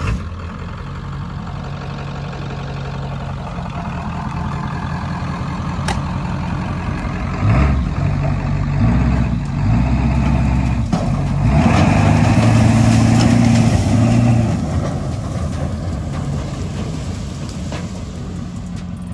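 Ford F-250's 7.3-litre turbo diesel V8 running, steady at first. About seven seconds in it revs up under load as the truck drags the old truck bed out on a tow strap, then eases off again near the end.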